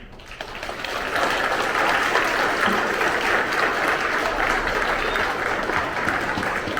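Audience of students applauding, swelling up over the first second into steady, full clapping.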